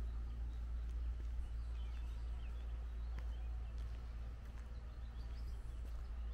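Faint bird chirps, a few short calls about two seconds in and again near the end, over a steady low rumble.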